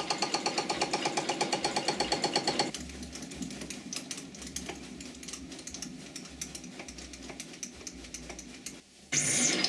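Metalworking machine running with a rapid, even mechanical clatter of about ten strokes a second, which stops about three seconds in. Quieter, irregular clicks and taps follow, and the clatter starts again loudly near the end.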